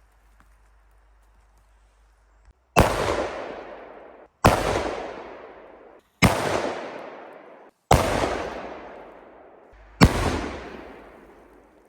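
Five large red firecracker blasts (cherry bombs, M80 and M100 class) in quick succession. Each sharp bang is followed by a long echo that fades away. The first three echoes are cut off abruptly by the next bang.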